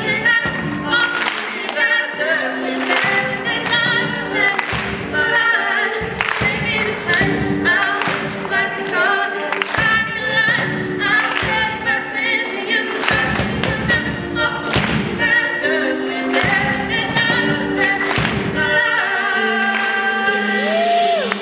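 Live rock band playing: a female lead vocalist sings into a microphone over electric bass and a drum kit beating out a steady rhythm. Near the end the drums stop and held notes ring on.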